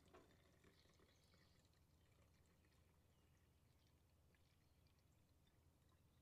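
Faint trickle of water poured from a plastic bottle into the plastic reservoir of a pigeon drinker, with a light knock right at the start.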